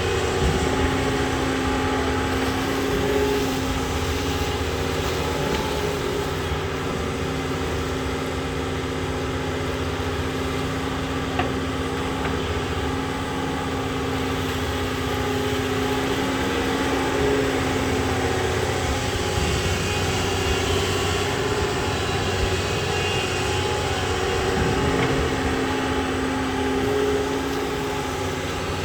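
Doosan long-reach excavator's diesel engine running steadily as it works, with a steady hum whose strength dips for a few seconds past the middle and then returns.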